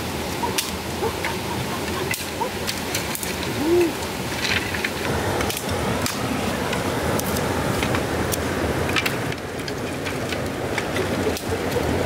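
Steady rushing of a stream, with scattered sharp clicks and knocks of dry sticks and bamboo being handled and piled on rock.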